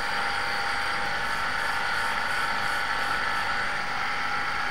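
Abrasive belt on a polishing machine running while a bare-metal golf iron head is held against it to cut out dents and marks: a steady whirring hiss with a few constant tones.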